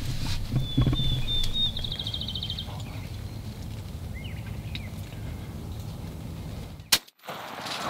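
A single shotgun shot near the end, the loudest sound by far, from a Benelli shotgun fired from a ground blind. Earlier, about two seconds in, a small bird gives a short run of rapid high chirps.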